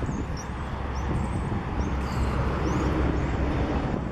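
Outdoor ambience on a windy day: wind rumbling on the microphone over a steady wash of distant traffic, with a few faint high chirps.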